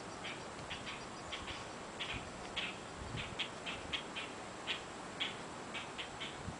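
Short, high chirps repeating irregularly, two or three a second, like small birds calling, over a steady background hiss.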